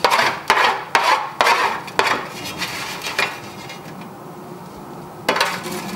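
Utensil scraping roasted parsnip and cauliflower across a roasting tray: quick scrapes about every half second for the first two seconds, one more around three seconds in, and another near the end.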